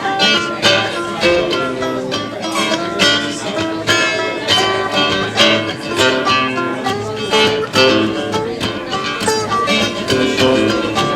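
Acoustic guitar music played live, strummed in a steady rhythm of about two strokes a second.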